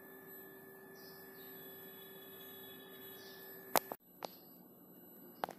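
Faint steady electrical hum and hiss made of a few held tones, with a sharp click a little under four seconds in, a brief dropout, and another click near the end.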